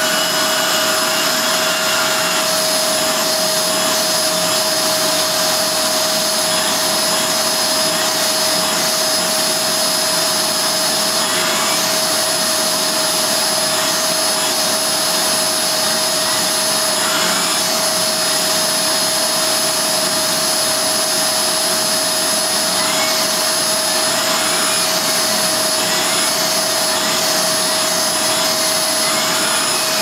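Hoover Globe bagless upright vacuum cleaner, a 900-watt machine, running steadily with suction through its fully stretched hose: a loud rush of air under a high-pitched scream. Small rising-and-falling whistles come and go from about eleven seconds in.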